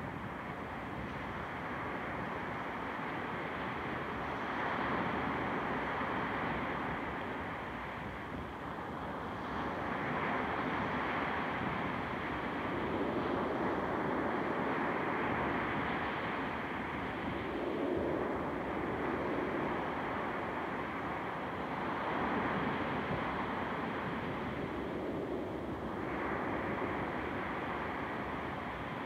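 Dark ambient soundscape: a dense, rushing drone that swells and eases every few seconds, with no clear melody or beat.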